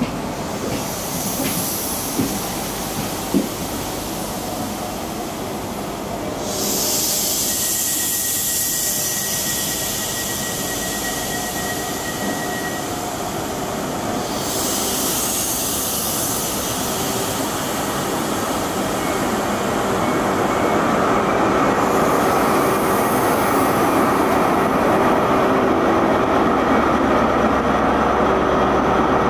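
The Network Rail New Measurement Train, an HST with Class 43 diesel power cars, rolls slowly past the platform with a steady rumble of wheels on rail. There are two long spells of high hiss, and a thin high squeal lasts about five seconds. Near the end the power car's diesel engine grows louder as it draws level.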